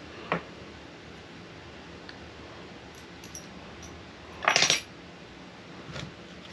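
Small metal hex driver bits clinking as they are handled on a table: a single click near the start, a few light ticks, and a short, louder rattling clatter about four and a half seconds in.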